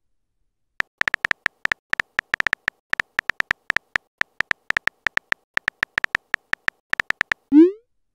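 Simulated phone-keyboard typing clicks from a texting-story app: a rapid, irregular run of short high ticks as a message is typed letter by letter. Near the end comes a short rising swoop.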